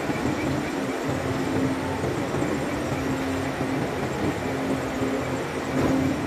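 Steady noise of heavy cargo-handling machinery: crane and diesel engines running, with a droning hum that swells and fades several times.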